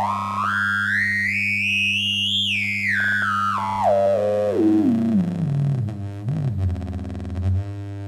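EMS Synthi 100 oscillator tone sweeping up in small steps to a high whistle and back down to a low pitch, over a steady mains hum on the output, one of the faults being diagnosed. After the sweep comes a low wobbling tone, then buzzy pulsing sounds.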